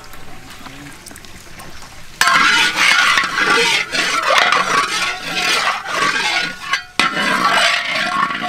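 A metal spatula scraping and stirring hot oil around a large metal wok, with the oil sizzling. The sound starts abruptly and loudly about two seconds in, after a quieter stretch while the oil is poured.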